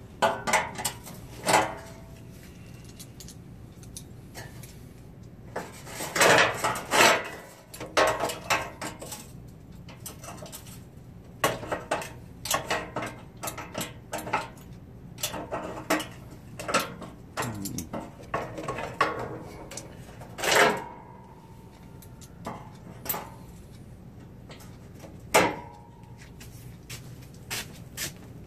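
Intermittent metal clanks, clicks and rattles from handling a steel sheet-metal panel with locking pliers clamped to it. A dense flurry of clatter comes about six seconds in, and a couple of sharper knocks later on ring briefly.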